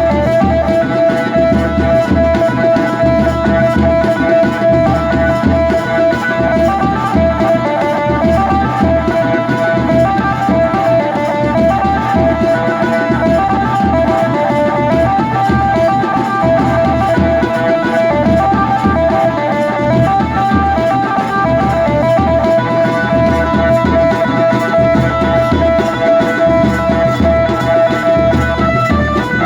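Adivasi wedding band music: a melody line repeating a short phrase over a steady, regular drum beat, played continuously and loud.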